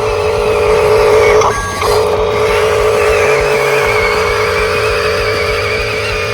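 Small electric motor and plastic gearbox of an RC construction model whining steadily, cutting out briefly about a second and a half in and then starting again.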